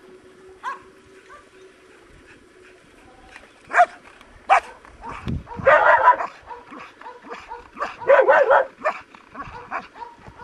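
A dog barking at a decoy in a hiding blind, the bark-and-hold of protection training. Single sharp barks begin about four seconds in, followed by two rapid bursts of barking.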